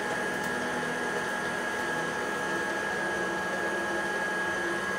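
Electric stand mixer running steadily on low speed, its beater working through cake batter: a constant motor hum with a thin high whine.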